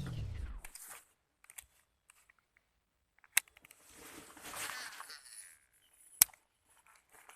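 Background guitar music ending in a falling pitch slide. Then two sharp clicks about three seconds apart, with a brief rushing noise swelling between them.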